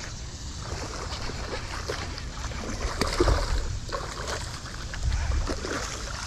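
A hooked fish thrashing and splashing at the surface of the water, loudest about halfway through and again near the end, over wind rumbling on the microphone.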